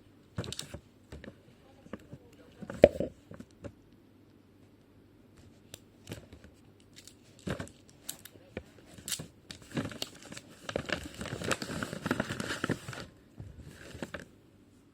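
Plastic blind-bag packaging being handled: scattered sharp clicks and taps, then about three seconds of dense crinkling and tearing of the plastic near the end.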